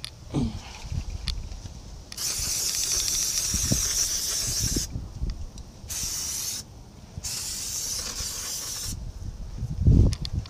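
Three bursts of hissing spray, about three seconds, under a second and two seconds long, cleaning the axle parts so no dirt gets inside the rear axle housing. A dull thump comes near the end.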